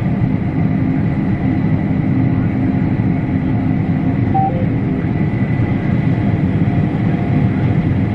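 Combine harvester running steadily while cutting wheat, a dense low mechanical drone with a thin high whine above it. A short two-note electronic beep sounds about four and a half seconds in.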